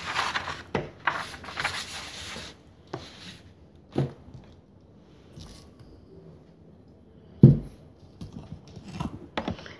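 Sheet of paper rustling as it is spread out over a tabletop, then a few knocks on the table. The loudest is a thud about seven and a half seconds in as a glass wine bottle is set down.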